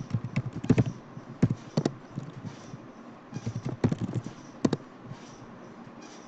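Typing on a computer keyboard: two bursts of keystrokes with a pause of about a second between them.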